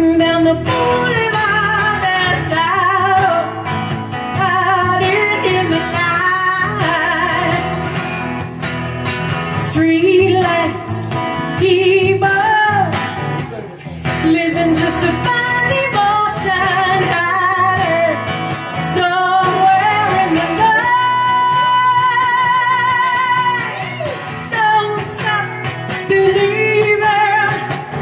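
A woman singing live with acoustic guitar accompaniment. Her voice carries a wavering melody, and about three quarters of the way through she holds one long note with vibrato.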